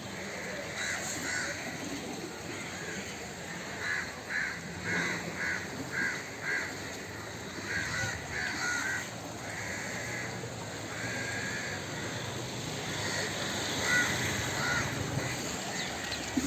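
Crows cawing in short repeated calls, a quick run of about five in a row a few seconds in, then more scattered calls, over a steady rush of flowing water.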